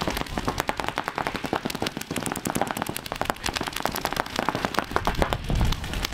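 Many paintball markers firing at once: fast, overlapping streams of sharp pops from several compressed-air guns during a point.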